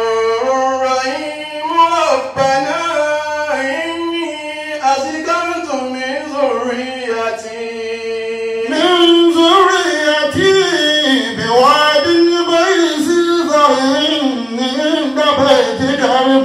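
A man's solo voice chanting Quranic verses in melodic recitation, with long held notes that bend and waver. About nine seconds in, the chant climbs higher and gets louder.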